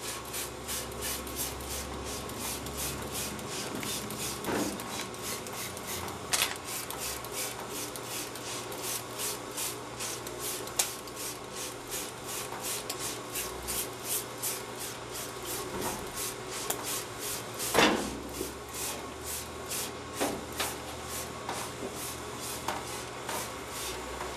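Trigger spray bottle squirting parts cleaner over and over, about three quick sprays a second, pre-spraying a grimy lawnmower deck to loosen the dirt. A louder knock comes twice, about 6 and 18 seconds in, over a faint steady hum.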